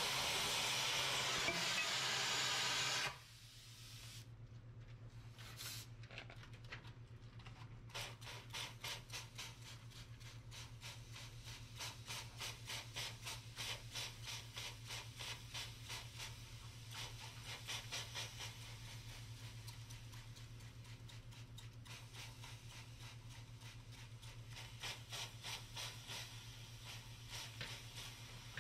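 Oxy-fuel cutting torch hissing as it cuts steel, shut off abruptly about three seconds in. Then a hand spray bottle squirting water onto the hot cut steel, many quick squirts with hissing steam, over a steady low hum.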